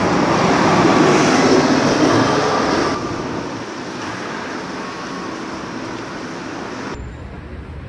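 Street traffic noise, a steady rush of passing vehicles, louder for the first three seconds and then dropping off suddenly.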